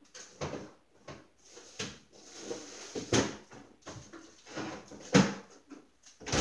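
Someone rummaging in a refrigerator: a string of knocks and clatters as things inside are moved and a drawer slides, with a stretch of rustling around the middle and the loudest knock about five seconds in.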